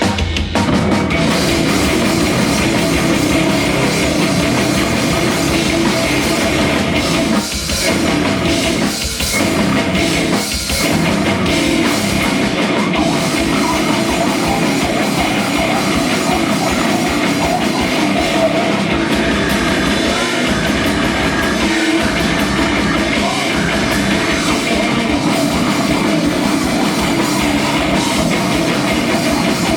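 Live rock band playing loudly, drum kit driving a dense, heavy rock sound that kicks in right at the start, with a few short breaks in the playing about a third of the way in.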